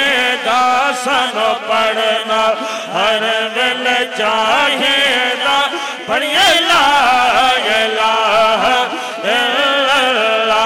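Two male voices chanting an Urdu/Punjabi devotional naat into microphones, a melismatic line that rises and falls without pause over a steady low held tone.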